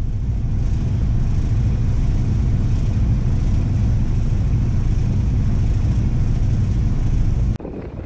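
A boat's engine running steadily under way, a continuous low drone.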